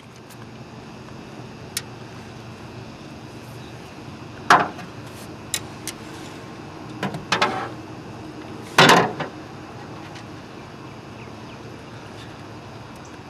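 Scattered knocks and thumps in an aluminium jon boat as a landing net holding a largemouth bass is lifted and handled, with the two loudest hits about four and a half and nine seconds in.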